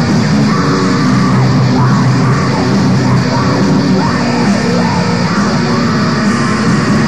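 Raw black metal from a lo-fi demo recording: a dense, unbroken wall of distorted guitars and drums, loud and steady throughout.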